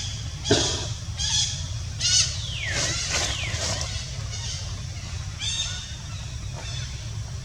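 Baby monkey crying in short, high-pitched squeals, several of them sliding down in pitch, repeated about six times.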